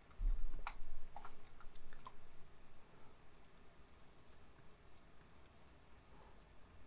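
Computer mouse clicks: a few sharp clicks in the first two seconds, then fainter ticks. A low thump near the start is the loudest sound.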